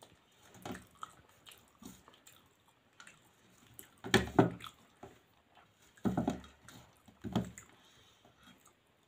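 Rice and curry being mixed by hand on a steel plate: soft wet squishing and small clicks, with three louder squelches about four, six and seven and a half seconds in.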